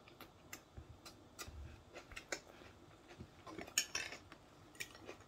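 Metal fork tapping and scraping on dishes in scattered light clicks, with a louder clatter about four seconds in.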